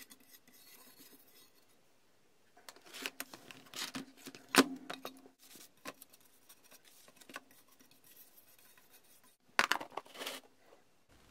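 Toothbrush scrubbing a steel plate in a plastic tub of paint stripper: bristles rasping, with clicks and knocks of the brush against the plate and tub, one sharp knock about halfway. Near the end, a plastic lid is pressed onto the tub with a short run of snaps.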